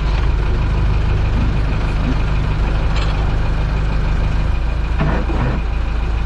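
Towboat's engine running steadily at low throttle, a constant low drone, as the tow gets under way.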